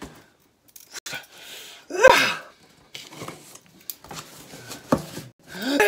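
Cardboard shipping box handled and turned over, with light clicks and rustles, broken by a short, loud wordless vocal sound about two seconds in and another starting at the very end.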